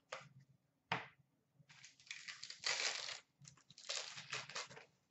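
Trading cards being handled: two sharp taps as a stack of cards is set down on a glass counter, then a longer stretch of crinkling and tearing as a foil hockey card pack is torn open.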